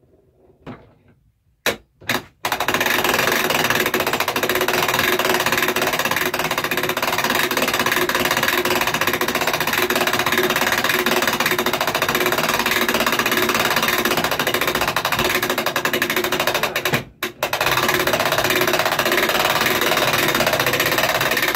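Hand-cranked winch hauling a roll-off observatory roof closed: a couple of knocks, then a fast, even mechanical clatter of the crank and gearing, broken once briefly about three-quarters of the way through.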